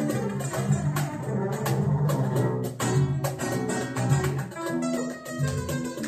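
Jazz-flamenco background music led by guitar.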